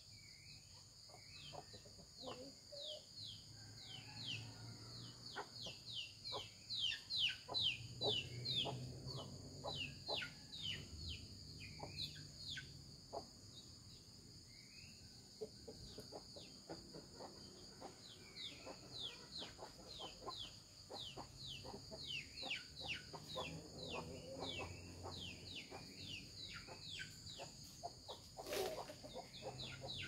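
Domestic chickens clucking softly as they forage, over a steady high insect drone and many quick chirps that fall in pitch. One sharper sound stands out near the end.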